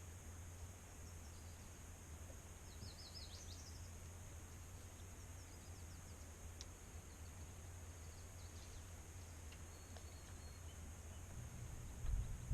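Quiet outdoor ambience: a steady high insect hum with a few faint bird chirps, including a quick run of them about three seconds in, over a low wind rumble. Low bumps come in at the very end.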